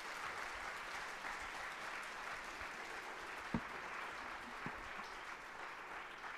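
Audience applauding steadily at the end of a lecture, with one dull thump about halfway through.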